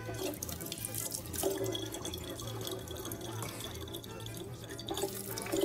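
A thin stream of water from a kitchen tap running into a large plastic water bottle.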